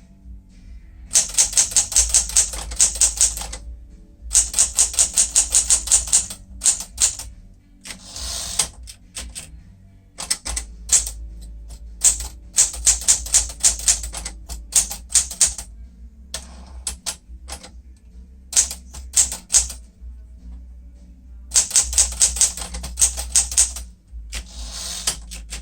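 1965 Sears Citation 12 manual typewriter, a Smith-Corona clone, being typed on: runs of rapid keystrikes at about eight to ten a second, broken by short pauses.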